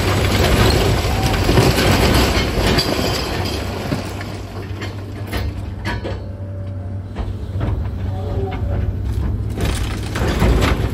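Komatsu 200 excavator running steadily with a low engine drone, over crunching, scraping and clanking of house demolition debris. The debris noise is busiest in the first few seconds, eases off in the middle and picks up again near the end.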